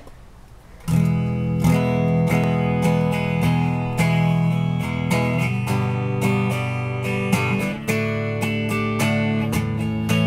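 Guitar strummed through Fairfield Circuitry effects pedals. Chords start suddenly about a second in and keep ringing, re-struck many times.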